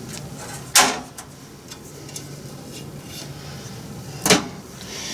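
Two sharp clunks about three and a half seconds apart, a panel of a computer case being pushed shut.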